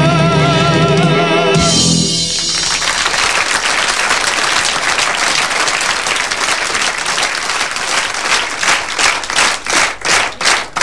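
A singer holds the song's last note with vibrato over the band, which ends about two seconds in. A live audience then applauds, and the applause settles into a clapping rhythm of about three claps a second near the end.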